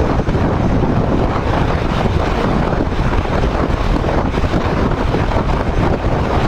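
Wind buffeting the microphone of a rider at highway speed, a loud steady rumble, with the Royal Enfield Himalayan 411 motorcycle's running and road noise underneath.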